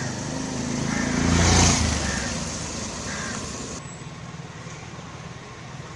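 A motor scooter driving past, growing loud to a peak about a second and a half in and then fading away; after a cut, a steady, quieter outdoor hum.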